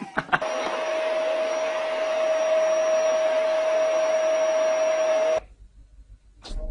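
A small electric motor running with a steady whir and a constant hum, after a couple of clicks at the start; it cuts off suddenly about five seconds in.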